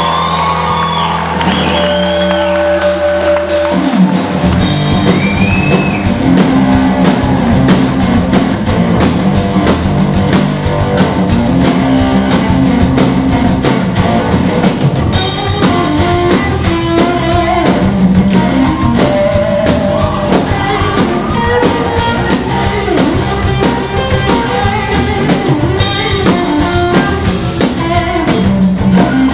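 Live rock band playing on electric guitars, bass guitar and drum kit. After a few seconds of held, ringing notes, the drums and full band come in about four seconds in and keep going.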